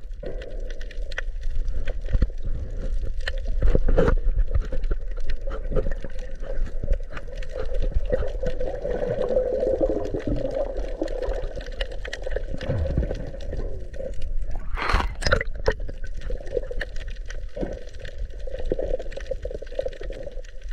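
Muffled underwater sound from a submerged camera: water gurgling and sloshing with scattered clicks and bubbles, and a louder rush of bubbling about 15 seconds in.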